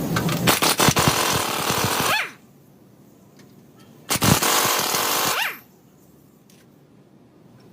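Impact wrench run in two bursts, a long one and then a shorter one, each hammering and then winding down in pitch as the trigger is released, working the bolts of the stabilizer bar bushing bracket.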